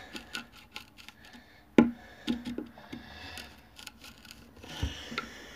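A small hand tool worked against the top edge of a wooden board: a run of small clicks and scrapes, with one sharp knock about two seconds in and a few lighter knocks after it.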